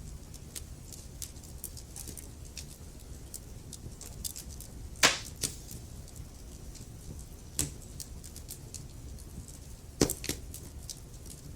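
Log fire in a fireplace crackling: scattered sharp snaps and pops over a low steady rumble, with two louder pops about five and ten seconds in.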